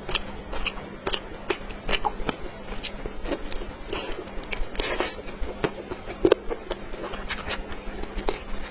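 Close-miked chewing and biting of food, with many irregular small clicks and smacks: the eating sounds of a mukbang, here cola-braised chicken wings.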